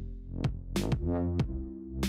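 Electronic background music with drum-machine hits over deep synth bass tones.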